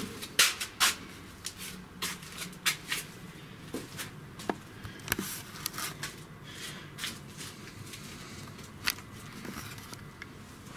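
Irregular light knocks, clicks and rustles from a person moving and handling things: close handling noise and footsteps. They come thick and fast for about six seconds, then thin out to a few isolated clicks.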